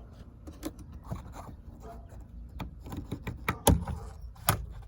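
Scattered light clicks and knocks from hands fitting a car's sunroof glass panel and its mounts while lining them up, with two sharper knocks in the last second and a half.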